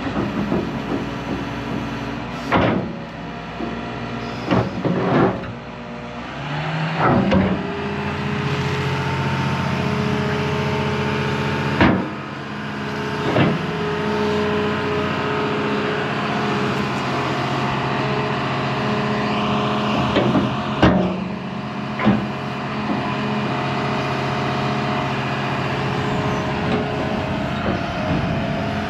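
John Deere 210G excavator's diesel engine running, picking up to a higher, working speed about a quarter of the way through as the hydraulics are worked to couple the bucket. Several sharp metal clanks sound over it.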